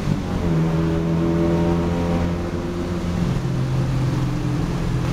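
Car engine heard from inside the cabin, pulling under hard acceleration, with its pitch dropping sharply about three seconds in as the next gear is engaged.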